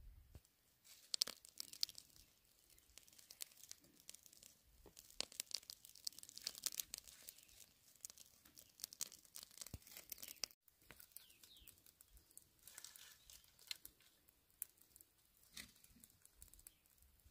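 Faint crackling and snapping of dry twigs and brush as a small stick fire is built and catches: a scatter of sharp little crackles, broken off for an instant just past the middle.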